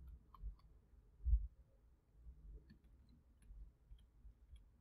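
Faint scattered clicks and taps of a stylus writing on a tablet screen, with one soft low thump a little over a second in.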